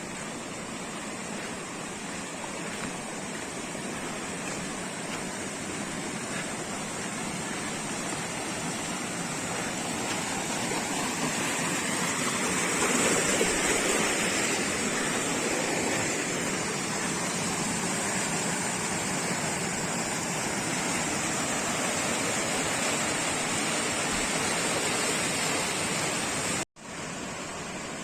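Waterfall: a steady rush of falling water that grows louder toward the middle, then holds steady, broken by a sudden brief cutout near the end.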